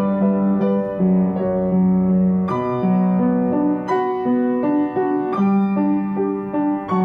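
Background piano music: a slow melody of held notes over a sustained low note.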